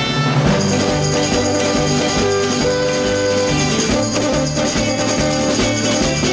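Background music with a steady run of changing notes.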